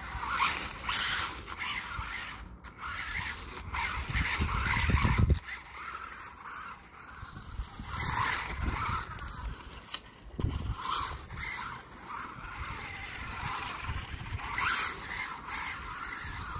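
A WLtoys A959-B 1/18-scale electric RC car being driven in short throttle bursts: its motor whirs and its tyres scrabble and skid over a rough, uneven surface as the car slides about.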